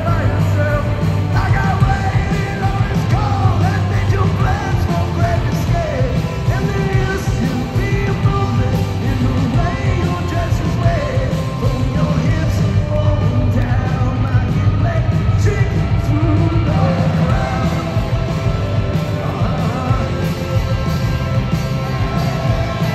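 Live rock band playing a song, heard from the audience: electric guitars and drums with a lead singer, loud and continuous.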